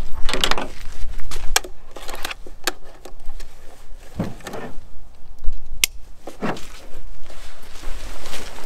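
Gear being handled and packed up: irregular rustling with several sharp clicks, over a low rumble on the microphone.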